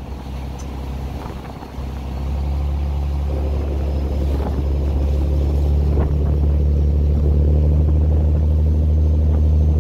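Tour boat's engine running, getting louder about two seconds in and then holding a steady low drone.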